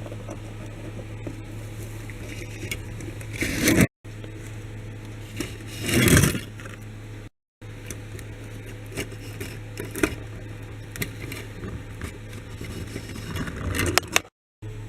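Small diecast and plastic toy vehicles being handled and pushed along a surface: scattered clicks and scrapes, with three louder scraping swells, over a steady low hum.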